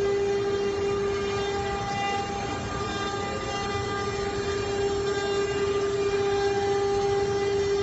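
CNC router spindle running at a constant speed: a steady whine with a stack of overtones, over machine noise.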